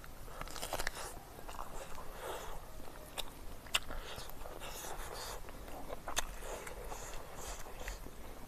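A person eating by hand: biting meat off a chicken bone and chewing, with many sharp, irregular wet mouth clicks.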